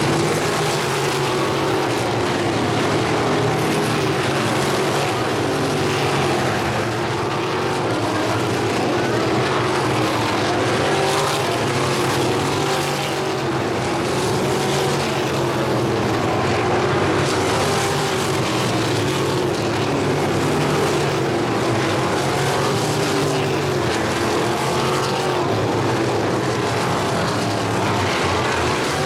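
Several crate sprint cars' V8 engines running together around a dirt oval. The sound is a loud, continuous drone whose pitch keeps rising and falling as the cars lap and pass.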